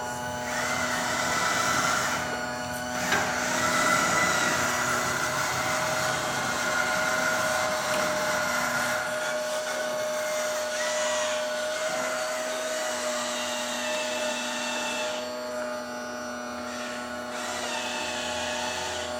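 Small electric motors and hydraulic pumps of radio-controlled construction models whining steadily, their pitch shifting a little as the machines work. A low hum underneath stops about halfway through, and the higher whine briefly drops away twice.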